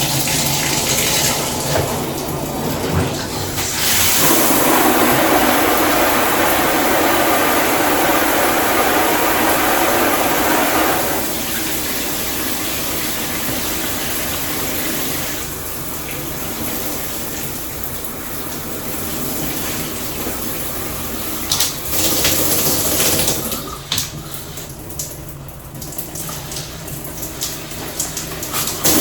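Water spraying from a newly fitted AquaBliss shower head: a steady hiss of spray that gets louder about four seconds in and shifts in level a few times, with a few sharp knocks near the end.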